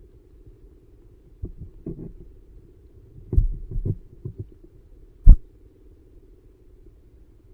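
Muffled underwater thumps and knocks picked up through a submerged camera's sealed housing, over a low steady rumble. A scatter of soft thumps comes in the middle, and the loudest is one sharp knock about five seconds in.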